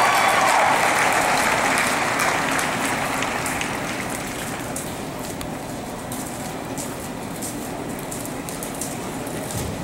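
Crowd applauding, loud at first and dying down over the first few seconds to scattered claps.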